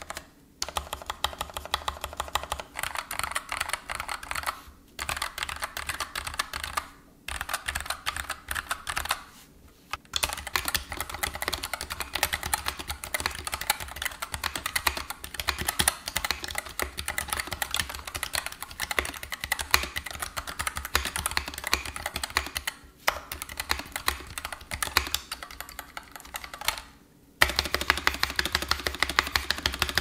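Mechanical keyboard being typed on fast, in runs of a few seconds each with brief pauses between them. Near the end the key presses land heavier, with a deeper thock, as the spacebar is pressed.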